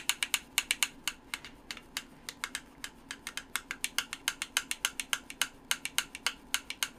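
Computer keyboard typing: fast, irregular key clicks, about six a second and uneven in loudness, with a faint steady hum underneath.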